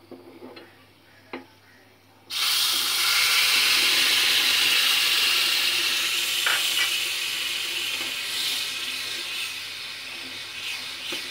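Grated tomato hitting hot oil and spices in a small pan, bursting into a loud sizzle about two seconds in that slowly dies down as it is stirred. A couple of light spoon clicks come before it.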